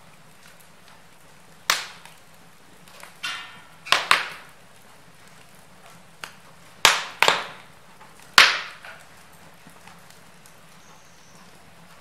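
Wood fire in a fireplace crackling, with a handful of sharp pops from the burning logs at irregular intervals, the loudest about four, seven and eight and a half seconds in, over a quiet steady background.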